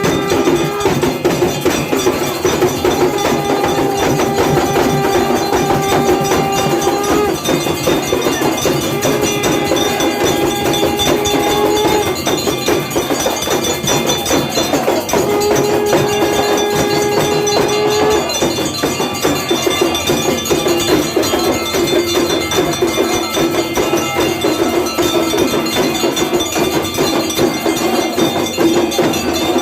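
Temple aarti: bells and percussion clanging rapidly and without a break, with long held tones of several seconds each sounding over them three times, then a steadier held tone.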